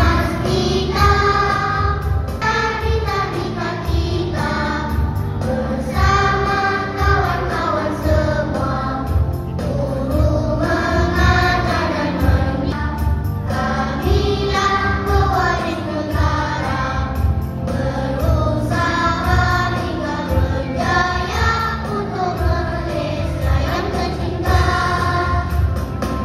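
A Malay-language song with a steady beat, sung by a group of voices like a choir, as accompaniment for a children's action-song performance.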